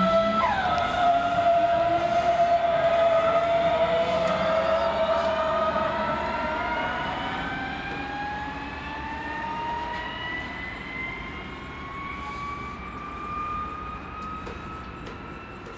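DB Class 423 S-Bahn electric multiple unit pulling away: its steady electrical whine drops in pitch about half a second in, then the traction drive's whine climbs steadily in pitch as the train accelerates. It grows fainter as the train moves off.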